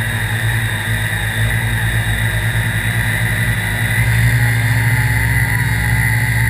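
Quadcopter's electric motors and propellers running steadily: a low hum with a steady high whine, with a rise in level about four seconds in.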